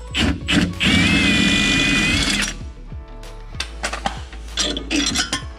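A power tool with a socket runs for about a second and a half, about a second in, spinning out the upper bolt of a Porsche Cayenne's front sway bar link. Short metal clicks and clinks follow as the bolt and tool are handled.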